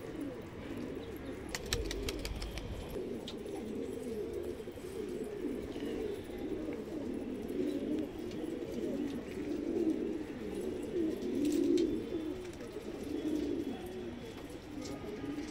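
Domestic pigeons cooing, several birds overlapping in a continuous low burbling warble: courtship cooing of pigeons in breeding mood, one displaying with its wings spread. A few short clicks sound near the start and again around the middle.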